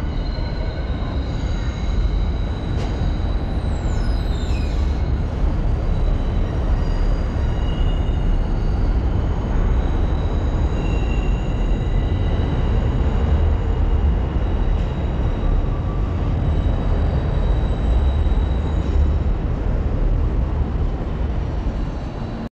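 A vehicle in motion: a loud, steady rumble with faint, steady high whining tones above it and a few brief squeaks a few seconds in.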